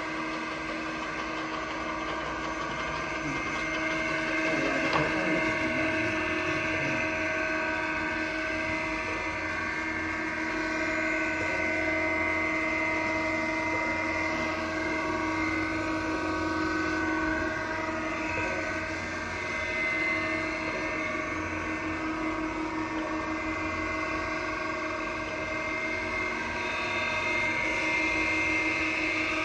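Brown & Sharpe 618 Micromaster surface grinder running: the spindle motor and grinding wheel give a steady, even whine of several pitches.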